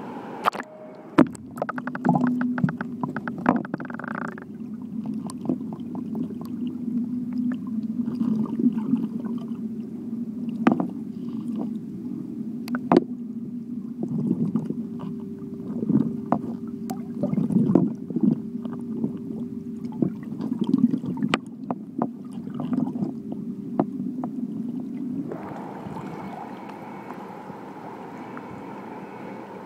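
Swimming-pool water heard from underwater as a husky swims: muffled gurgling and bubbling with scattered clicks and knocks over a low steady hum. About 25 seconds in, the sound suddenly opens up into the brighter wash of water at the surface.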